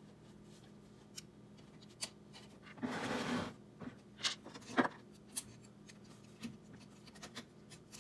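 Small metal hardware being handled while bed-levelling springs, washers and nuts are fitted onto the corner screws of an Anet A8 3D printer's bed: scattered light clicks and taps, with a brief scraping rustle about three seconds in, over a faint steady hum.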